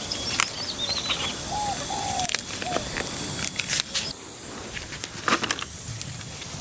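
Birds calling: short high chirps, then a few lower arched calls, over a steady hiss, with scattered sharp clicks and knocks.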